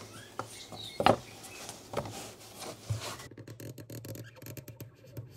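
A few sharp knocks about a second apart as a steel ruler and tools are handled on a wooden workbench. Then a utility knife blade scrapes along a steel rule as it cuts through thick veg-tan leather, a quick run of small scratchy clicks.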